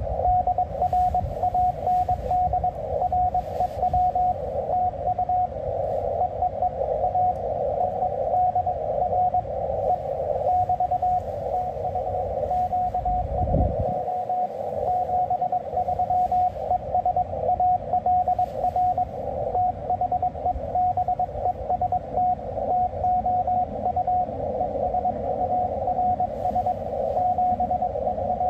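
Morse code (CW) on a ham radio receiver: a tone of about 700 Hz keying on and off over band hiss squeezed into a narrow CW filter.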